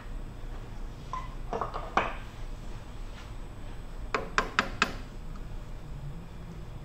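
Light metallic clinks, then four quick ringing ticks about four seconds in, as a tool is touched against a thin 7-inch aluminium disc mounted on a lathe to find its high and low spots.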